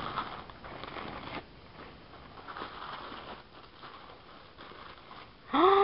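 Crinkling and rustling of a plastic zip-top bag being pulled open and white tissue paper being unwrapped, fuller in the first second and a half and softer after. Just before the end a voice breaks in with a loud, drawn-out rising "oh".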